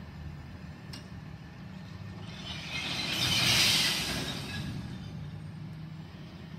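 Distant side-loading garbage truck's diesel engine running steadily. About halfway through, a hiss swells up and fades away over a couple of seconds; it is the loudest sound.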